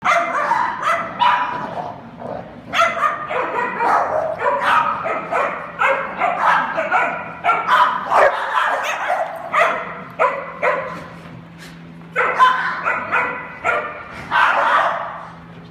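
A group of dogs barking, short sharp barks coming in quick, overlapping runs with a few brief lulls.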